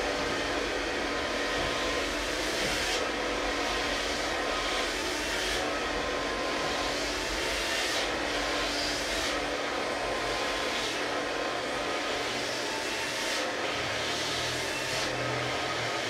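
Handheld hair dryer running steadily, a motor hum under rushing air, the high hiss dipping briefly every two to three seconds.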